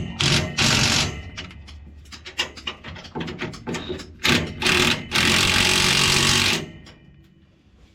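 A power tool runs in two bursts, one about a second long early on and one about a second and a half long past the middle, amid clanks and knocks of metal parts being worked on; it fits bolts being run down on the auger setup.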